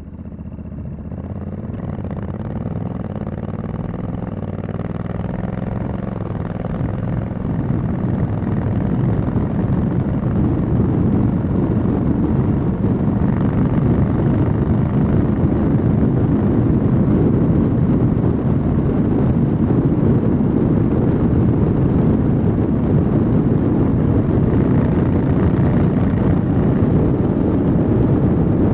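Honda Africa Twin 1100 DCT's parallel-twin engine accelerating hard from a crawl, its pitch climbing through the gears. Rushing wind on the microphone grows louder with speed until it covers the engine at a steady high-speed cruise.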